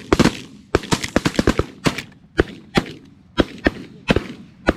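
Volley of shotgun blasts from several waterfowl hunters firing at once: well over a dozen shots, fast and overlapping in the first two seconds, then spacing out to a shot about every half second.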